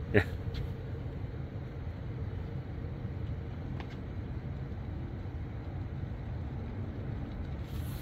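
Stainless-steel electric kettle heating water close to the boil: a steady low rumble and hiss.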